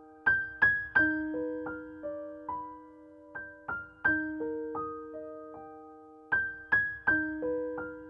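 Background music: a piano melody of single struck notes that ring on, the short phrase repeating about every four seconds.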